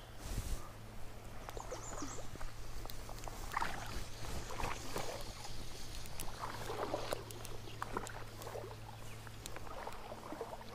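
Water splashing and sloshing close by in irregular bursts as a trout hooked on a fly line, snagged in underwater structure, is worked free, over a low steady hum.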